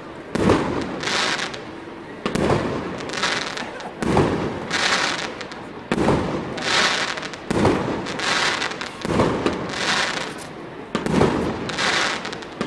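Aerial firework shells bursting one after another, a sharp bang about once a second, each followed by a short crackling tail.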